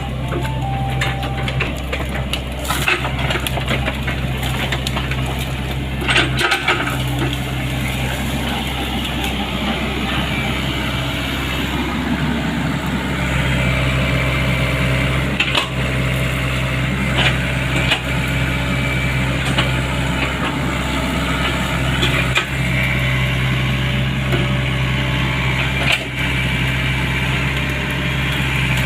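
Sany excavator's diesel engine running steadily at working speed, with sharp knocks and cracks every few seconds.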